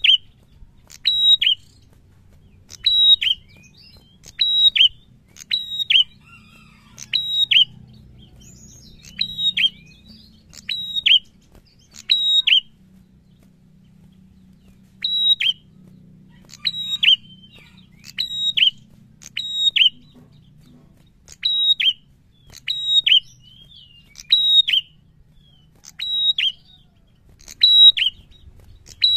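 Caged prenjak singing: a loud, sharp call, a high note dropping to a lower one, repeated about once a second, with a pause of a couple of seconds midway.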